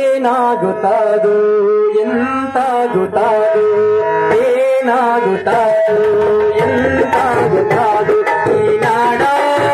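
A man singing a Kannada song into a microphone, accompanied by harmonium and tabla. His voice bends between notes over the harmonium's held tones while the tabla strikes out the rhythm.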